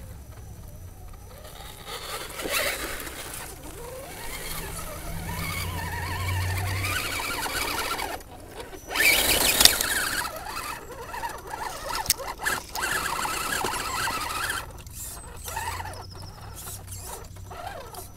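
Electric motor and gearbox of an Axial SCX10 radio-controlled scale crawler whining, rising and falling in pitch as the throttle changes while it crawls through snow and mud. A loud burst of noise about halfway through.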